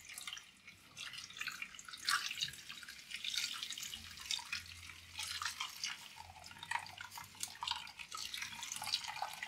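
Tiger nut milk trickling and pattering into a stainless steel bowl as the blended pulp is squeezed by hand through a cloth bag.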